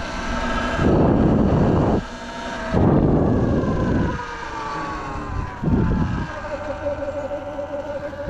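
Surron electric dirt bike under way: the motor and belt drive whine, the pitch sliding down over the first few seconds, then holding one steady tone in the second half. Three bursts of wind rush over the microphone.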